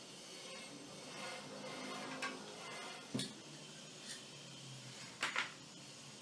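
Light metallic clinks and a few sharp knocks of tools and metal parts being handled while a new bearing is fitted onto a washer-dryer's dryer fan motor, with a quick double knock near the end.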